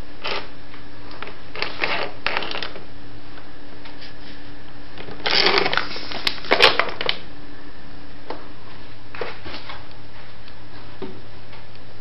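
A plastic wrapper crinkling and rustling in short bursts as a cat plays with it, the loudest stretch about five to seven seconds in, over a steady low hum.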